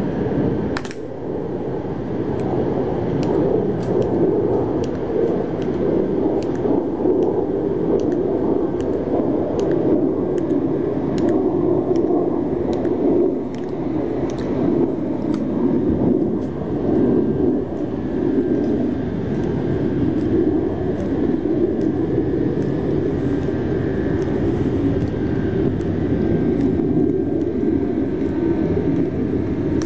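A steady low rumble, with faint sharp clicks about once or twice a second.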